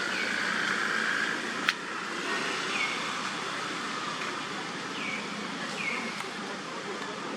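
Steady outdoor background rush like distant traffic, with a sharp click about two seconds in and several short, high, falling chirps.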